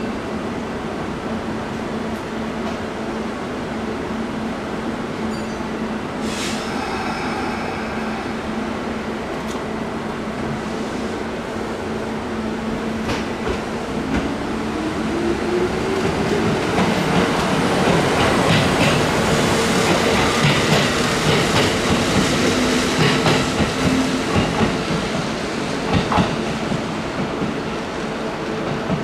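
Kintetsu two-car electric local train pulling out of the station: a steady hum, a short tone about six seconds in, then a motor whine rising in pitch from about halfway as the train accelerates, growing louder, with clicks of the wheels over rail joints near the end.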